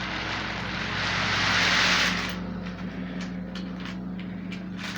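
Steady hum of a small battery-powered toy train motor, with a rushing hiss that swells over the first two seconds and stops, then a series of light plastic clicks and rattles.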